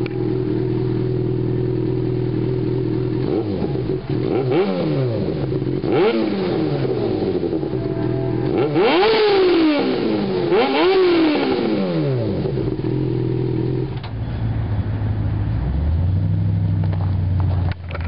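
A 2006 Yamaha FZ6's 600cc inline-four running through a Two Brothers aftermarket exhaust: idling, then revved four times in quick blips, each rising and falling back, the third the highest, before it settles back to idle.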